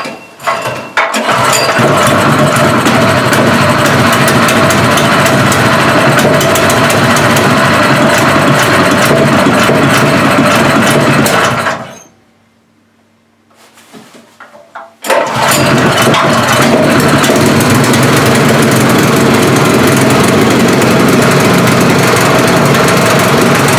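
Meister small petrol engine starting about a second in and running steadily, then cutting out about halfway, before being started again and running on. This is its first start after the engine was cleaned out and filled with hydraulic oil.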